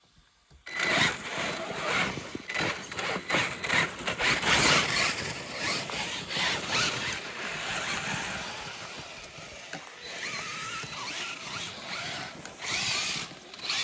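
Losi LMT radio-controlled monster trucks climbing a loose dirt slope. Their electric motors whine, the pitch rising and falling with the throttle, over the crunch and scatter of tyres spinning in dirt. There is a moment of silence right at the start.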